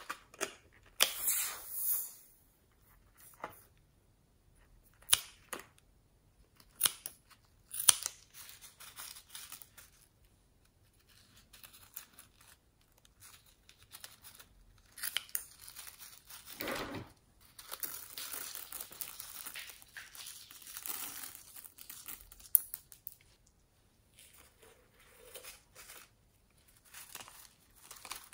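Scissors cutting open a mesh-net stress ball: a few sharp, separate snips at first, then a longer stretch of dense cutting and tearing noise in the second half.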